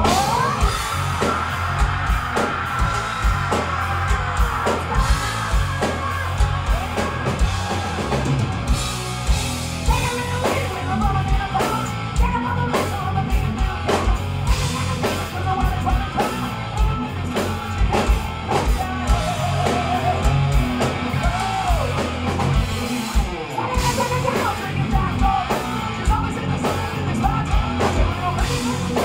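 Live hard rock band playing: drum kit, electric guitars and a male singer. Near the start a high sung note glides up and is held for a few seconds, then the drums and vocal line carry on.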